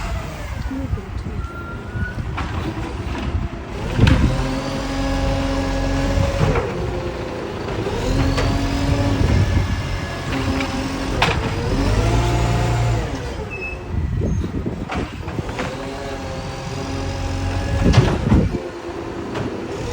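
The 1450's engine running, with an exhaust leak. Its pitch rises and falls several times as it is revved and let back down, with a sharp knock about four seconds in and another near the end.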